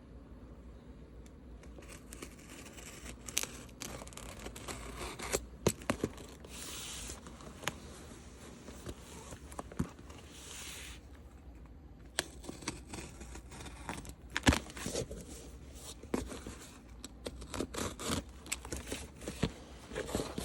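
A large cardboard shipping box being opened by hand: tearing and scraping of tape and cardboard, with crinkling packing material and scattered sharp knocks.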